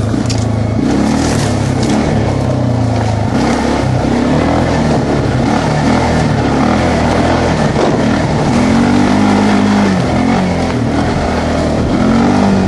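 Quad (ATV) engine running under way on a rough trail, its pitch rising and falling as the throttle opens and closes.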